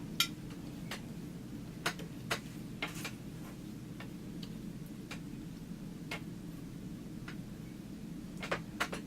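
Scattered small, sharp sticky clicks and taps, unevenly spaced, from slime being worked by hand off plastic packaging, over a steady low hum.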